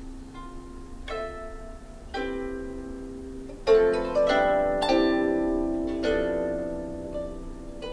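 Plucked string instrument playing a slow phrase of single notes and chords, each note ringing out and fading. The notes get louder about halfway through.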